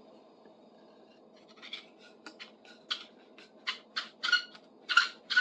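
Wooden handle being twisted back and forth in the metal socket of a shingle puller during a test fit: short dry scraping strokes, two or three a second, starting about a second and a half in and getting louder. The scraping marks the high spots on the handle's taper that still need shaving down.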